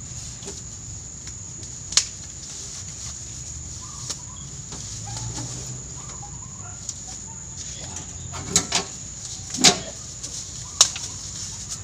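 Sharp knocks and clacks from handling bananas and a sack on a wooden table: a single knock about two seconds in, then a cluster of knocks near the end, the loudest just before the last. Under them runs a steady high-pitched whine.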